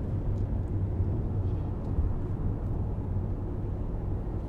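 Car driving at road speed, heard from inside the cabin: a steady low drone of road and engine noise.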